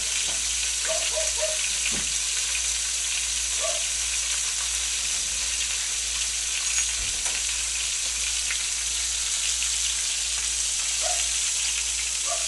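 Battered white oyster mushroom tempura frying in hot oil in a pan: a steady sizzle with small crackles.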